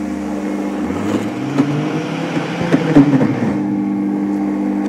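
Oster Versa 1400-watt blender motor running on low speed while boiling water is poured in and mixed into flour. Its note wavers, with a few knocks in the middle, then it cuts off at the end.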